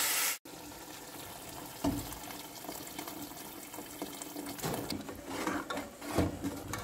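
A frying sizzle cuts off abruptly right at the start. Then water pours steadily into a pot of oil-fried walnuts and dried fruit, with a few light knocks.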